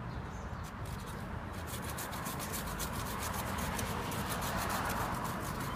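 Corona hand pruning saw cutting through wood with steady back-and-forth rasping strokes.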